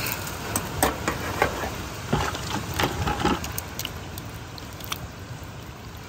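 Fish in a cream sauce cooking in a steel skillet over campfire coals while the pan is tossed: a steady hiss with scattered sharp clicks and crackles.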